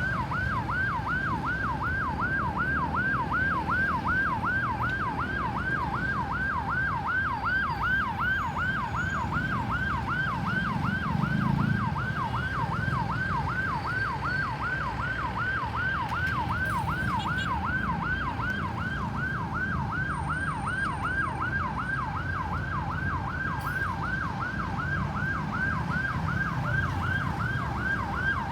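Ambulance siren in fast yelp mode, its pitch sweeping up and down about three times a second without a break, over a low road rumble.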